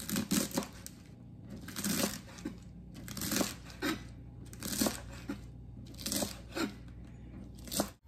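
Kitchen knife chopping a bunch of garlic chives on a plastic cutting board: crisp crunching cuts that come in bursts about every second and a half.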